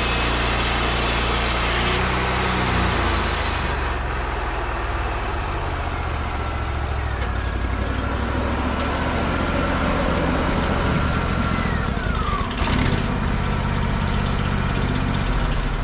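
Wood-Mizer LT40 portable bandsaw sawmill running, its engine holding a steady hum while the mill saws. The engine note shifts a couple of seconds in, and a short falling squeal comes near the end.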